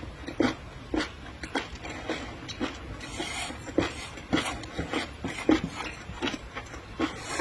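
Close-miked wet chewing and mouth smacking while eating raw seafood, about two smacks a second, with a short slurp about three seconds in.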